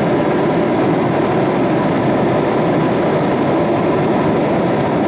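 Steady cabin noise of a Boeing 737-800 in flight: an even rush of airflow over the fuselage and the hum of its CFM56-7B engines, heard from inside the cabin.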